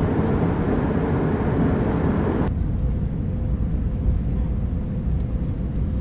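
Passenger airliner cabin noise in flight: a steady low rumble of engines and airflow. About two and a half seconds in, the higher part of the noise drops away suddenly, leaving a deeper rumble with a faint steady hum.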